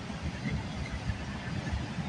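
Freight train cars rolling slowly past, a low, uneven rumble.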